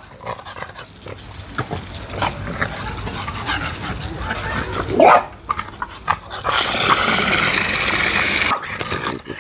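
French bulldog yipping and whining, with one loud rising yelp about halfway through. Near the end a garden hose nozzle sprays into the water-filled tank for about two seconds, then cuts off suddenly.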